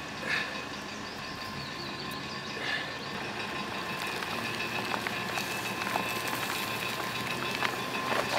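Land Rover engine running at low revs as the vehicle creeps forward, pulling the hide off a roe deer carcass by a golf ball and string. A steady hum that slowly grows louder, with two short high chirps in the first few seconds.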